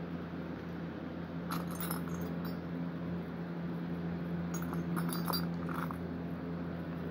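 Small metal clinks and rustling as rings are picked through and handled, in two short clusters, over a steady low hum.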